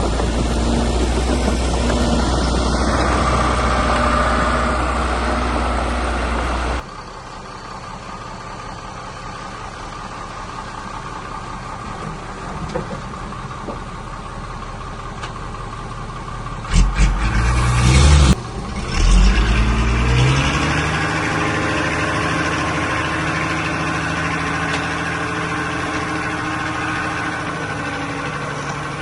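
Diesel engines of earthmoving machinery running. A steady drone cuts off abruptly about seven seconds in, loud low blasts come around the middle, and then an engine revs up and settles into a steady run.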